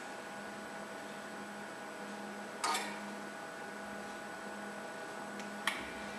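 Steady electrical hum from a robotic soldering station while the iron tip rests on the board, with two short mechanical clicks: one about two and a half seconds in and a sharper one near the end, as the robot begins to lift the tip.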